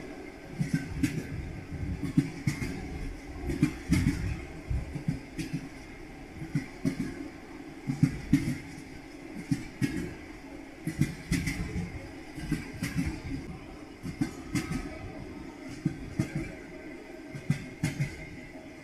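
Moving train's wheels knocking over the rail joints again and again, over a steady low rumble of the running carriage.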